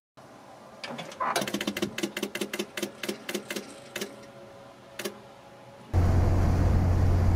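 SU electric fuel pump ticking: a fast run of sharp clicks, about seven a second, that then spaces out to single ticks about a second apart, the usual pattern of the pump filling the carburettor. About six seconds in, the steady cabin drone of the Morris Minor at motorway speed comes back in.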